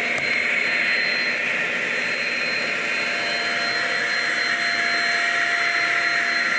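Shark Rocket self-cleaning stick vacuum running steadily, a motor rush with a thin high whine; a lower steady tone joins about three seconds in.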